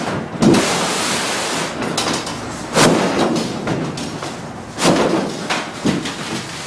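Foam liner being pulled and lifted out of a Sportspal aluminum canoe hull: scraping and rustling against the metal, with several knocks from the hull, loudest about half a second, three seconds and five seconds in.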